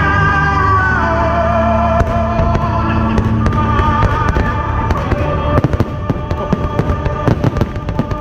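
Fireworks show music with long held tones fading out over the first half, as dense crackling fireworks and rapid sharp bangs take over.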